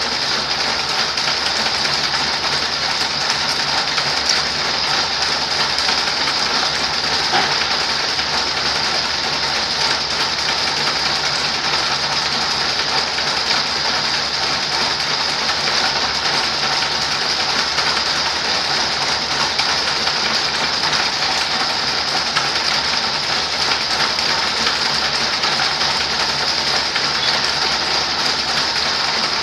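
A 24-spindle high-speed steel-wire braiding machine running at speed, its spindle carriers travelling around the deck with a steady, dense clatter.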